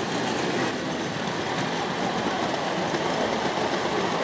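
Tinplate O gauge model trains running on three-rail steel track: a steady, even running noise of wheels on the rails.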